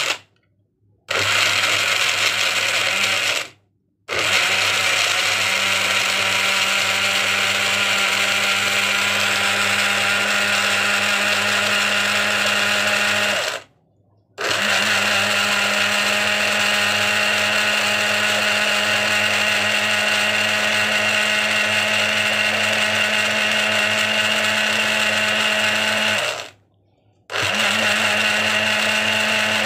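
Electric kitchen blender running at a steady speed, chopping garlic, ginger and lime with water into a liquid. Its motor hum is broken four times by short, abrupt silent gaps.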